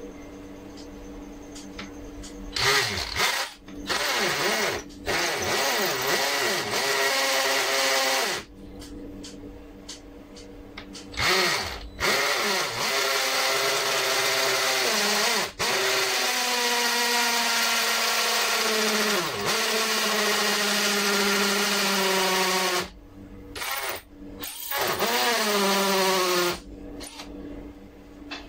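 Cordless drill boring holes into a concrete wall in several runs of a few seconds each. The motor pitch sags as it bites into the wall during the longer runs and winds down at each stop.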